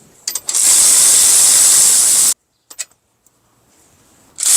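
A power wrench running on the caliper bracket bolts with a loud, steady hiss, in two runs: the first cuts off abruptly just over two seconds in, the second starts near the end. A few sharp clicks come just before the first run.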